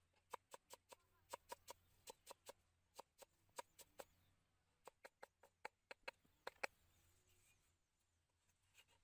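Large knife chopping carrot on a wooden chopping board, mincing it: sharp knocks about four a second. The knocks stop about two-thirds of the way through, the last one the loudest.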